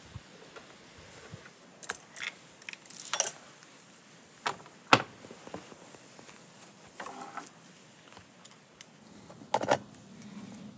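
Metal clinks and rattles from a chainsaw's guide bar and chain being taken off by hand, the loose chain jangling against the bar. The sounds come as scattered clicks, with one sharp knock about five seconds in and another cluster of clinks near the end.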